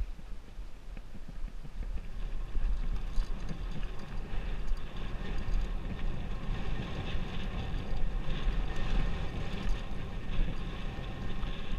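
Wind buffeting a helmet-mounted GoPro's microphone and knobby tyres rolling on dry dirt as a Specialized Enduro mountain bike descends singletrack. It grows louder about two seconds in.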